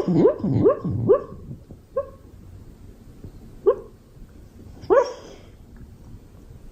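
Beagle barking: a quick run of four or five short barks in the first second, then single barks about two, three and a half and five seconds in, each rising sharply in pitch.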